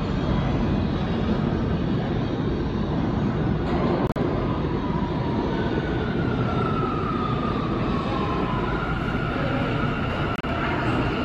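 New York City Subway train pulling out of an underground station and running off into the tunnel, a steady rail rumble with a faint whine that glides lower about halfway through.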